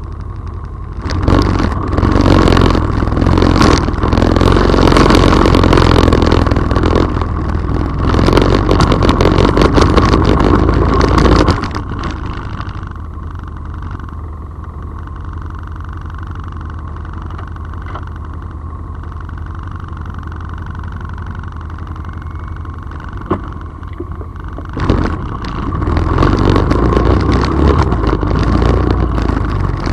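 Off-road vehicle engine driving along a forest trail. It runs loud and rough under throttle for about ten seconds, settles to a steadier, quieter running for about twelve seconds with one sharp knock, and picks up again near the end.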